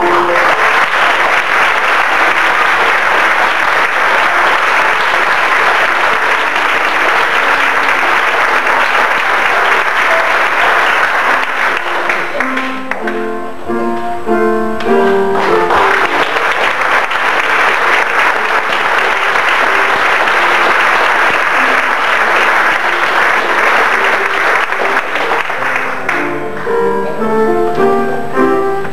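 Audience clapping over an instrumental tune. The applause dies away about twelve seconds in, leaving the tune on its own for a few seconds, then swells again and fades a few seconds before the end, when the tune is heard alone once more.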